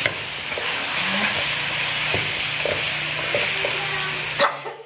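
Long beans and spice paste sizzling in a wok while a metal spatula stirs them, with small scraping taps of the spatula against the pan. The sizzle cuts off suddenly near the end.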